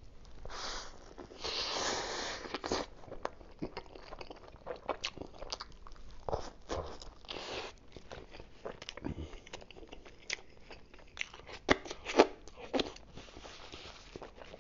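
A bite into a Philly cheesesteak sandwich, miked close. About half a second in the roll's crust crunches for a couple of seconds, followed by chewing with scattered wet mouth clicks.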